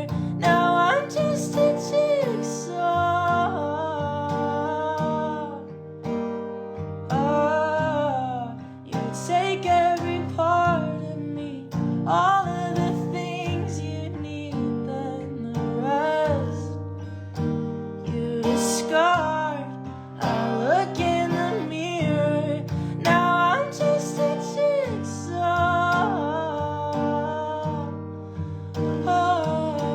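Acoustic guitar strummed while a male voice sings the melody of a slow pop song.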